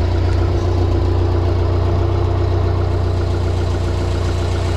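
1987 Pontiac Acadian engine idling steadily through its freshly repaired exhaust, with a little leak still puffing at the front flange by the downpipe, which the owner hears and means to tighten.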